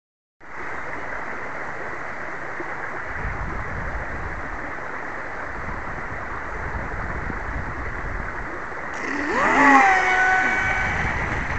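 A steady hiss with a low rumble, then about nine seconds in the motor of a home-made RC boat whines up in pitch and holds a high tone as the boat speeds off across the water.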